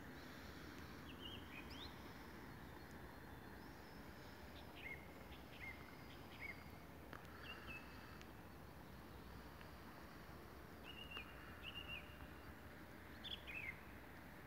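Faint bird calls: short, scattered chirps and quick whistled slides, a few every couple of seconds, over a steady quiet background hiss.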